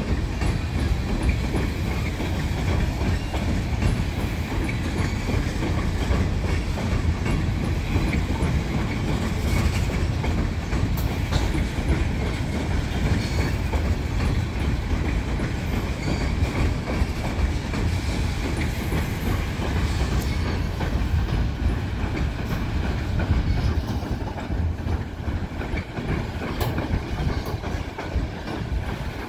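Union Pacific oil train's tank cars rolling backward across a steel girder bridge: a steady low rumble of wheels on rail, with wheels clacking over the rail joints.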